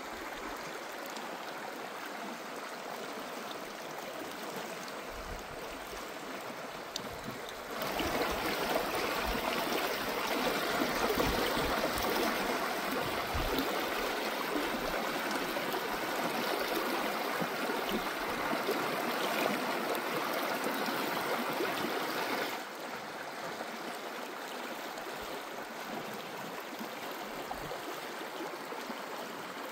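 River water flowing: a steady rush. It is louder for about fifteen seconds in the middle, stepping up and back down suddenly.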